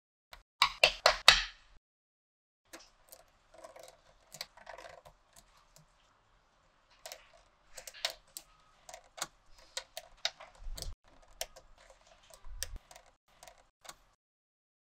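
Small magnetic balls clicking and snapping together as they are set in place by hand: a quick run of sharp clicks about a second in, then scattered lighter clicks and soft rattling.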